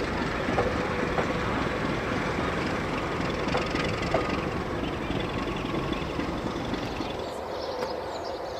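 Heritage train of wooden passenger carriages rolling slowly past, the wheels giving a steady rumble on the rails that eases off toward the end.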